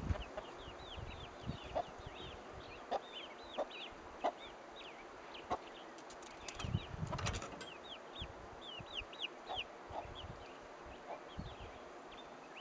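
Chicks peeping rapidly and continually in short high notes, with a hen's soft clucks now and then. A brief rustling burst comes about seven seconds in.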